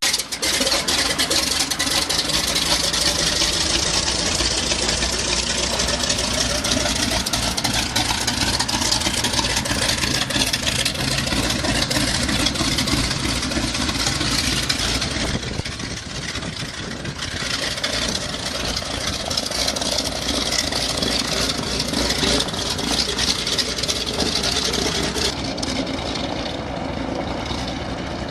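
Small propeller plane's engine running close by, a steady loud drone with heavy propeller hiss. It eases off briefly about halfway through and drops a step near the end.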